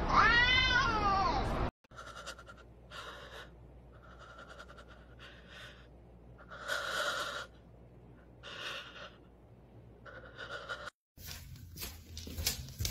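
A cat's drawn-out yowl from a standoff between two cats, its pitch rising and falling, cut off just under two seconds in. Then come faint breathy sounds in short separate bursts, and near the end a quick run of sharp taps.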